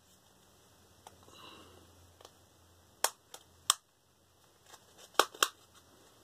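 Plastic back cover of a phone being prised off by hand: sharp clicks as its clips snap loose, two about three seconds in and two more about five seconds in.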